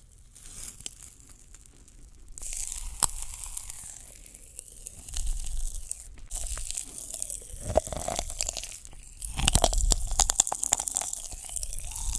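Close-miked crunching and chewing of crisp food, as in a mukbang, in dense crackles that start about two seconds in after a quiet opening.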